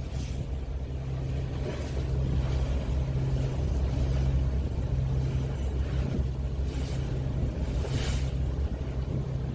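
Low, steady drone of a ro-ro ferry's engines under way, with wind gusting across the microphone a few times.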